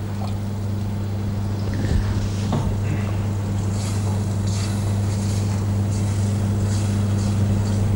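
Steady low hum, with faint sizzling and a few soft scrapes as water is added to simmering tomato sauce in a steel saucepan and stirred with a wooden spoon.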